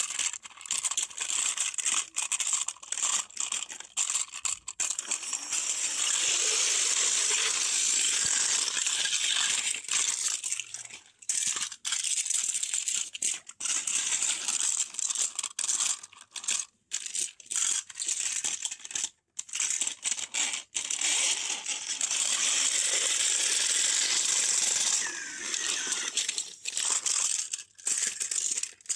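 Small motorised toy buzzing and rattling as it skitters across a foam mat, with many brief drops in the sound and a few short silences.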